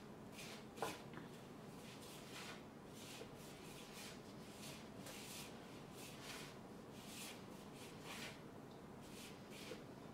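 Hands rubbing and squeezing a crumbly flour mixture of rice and wheat flour, yogurt and oil in a mixing bowl: faint, soft rustling strokes about two a second, with a light knock about a second in.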